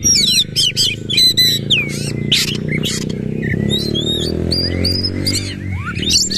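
Oriental magpie-robin singing a fast, continuous song of sharp whistled notes, quick rising and falling sweeps and chattering phrases, over a low steady hum.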